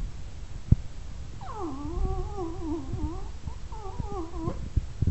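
Jack Russell terrier whining to be taken out for a walk: two long, wavering whines, the second shorter. There is a single sharp knock just before the first whine.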